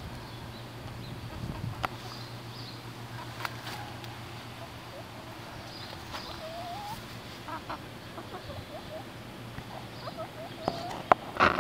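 Silkie chickens clucking softly, with short rising calls from about halfway through and a louder burst near the end.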